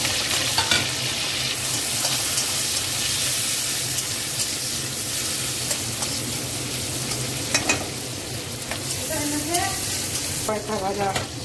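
Sliced onion and green chillies sizzling in hot oil in a kadai, stirred with a metal spatula that now and then clicks and scrapes against the pan.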